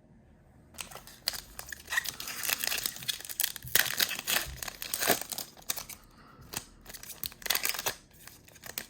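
A foil trading-card pack (2020-21 Panini Prizm basketball) being torn open and its wrapper crinkled, a dense irregular crackling that starts about a second in.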